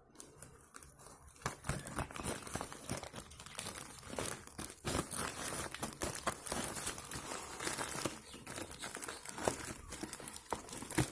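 Plastic delivery bag crinkling and tearing as it is pulled open by hand, an irregular run of crackles and rustles.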